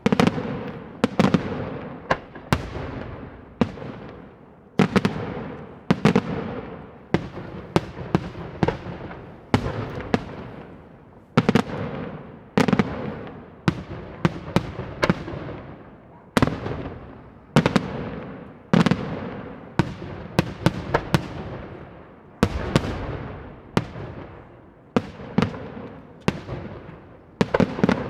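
Daytime fireworks display: a steady barrage of aerial shell explosions, sharp bangs coming irregularly about one to three a second, each trailing off in a long echo.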